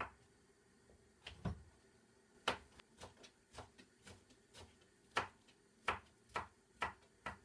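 Kitchen knife chopping black kale on a plastic chopping board: a series of short, sharp knocks, scattered at first, then about two chops a second in the second half.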